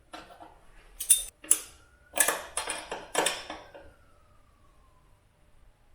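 Metal tools and parts clanking and rattling: a quick series of sharp metallic hits over about four seconds, the last leaving a faint ringing tone that slowly drops in pitch.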